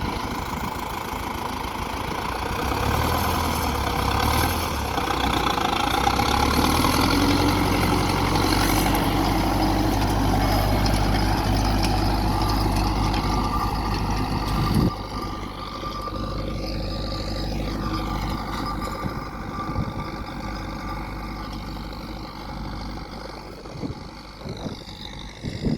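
Farm tractor engine running steadily, louder from about three seconds in, then dropping off suddenly about halfway through to a quieter run.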